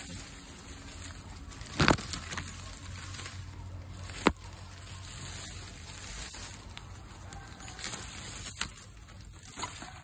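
Leaves and twigs rustling and brushing against the phone as it is pushed in among the branches, with sharp clicks about two and four seconds in, the second the loudest, and a few more near the end.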